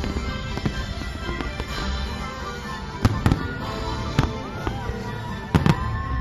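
Aerial fireworks shells bursting in a display: several sharp bangs, in pairs about three seconds in and again near the end, with another at about four seconds, over music playing throughout.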